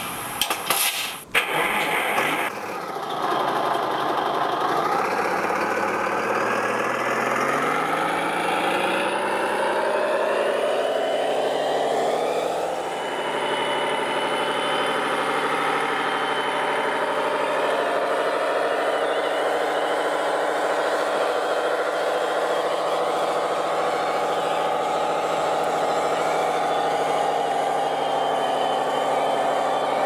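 Large RC model truck's engine sound: a few sharp clicks right at the start, then the engine note rises steadily for about ten seconds and settles into a steady run.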